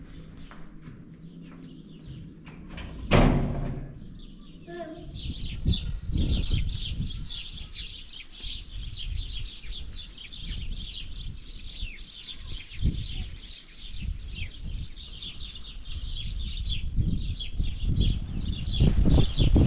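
Many small birds chirping continuously in the trees, a dense run of quick high chirps. A single loud bang, like a door shutting, comes about three seconds in, and low rumbles run under the chirping.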